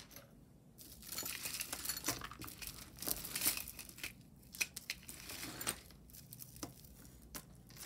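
A bag crinkling as hands rummage in it for the next piece of jewelry, followed by a few sharp small clicks.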